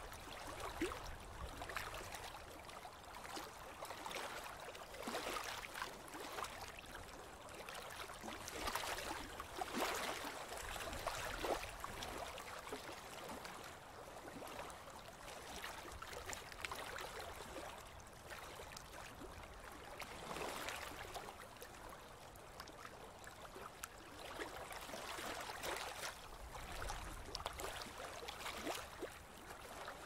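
River water lapping and splashing in small waves: a steady wash of water broken by irregular little splashes.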